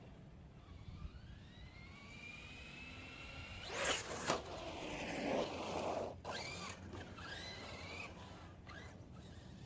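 Electric RC truggy running on a 6S lipo with a 2000kv brushless motor. A faint rising motor whine comes first, then a louder rush of motor whine and tyre noise about four seconds in, with the pitch sweeping up and down as it accelerates and slows.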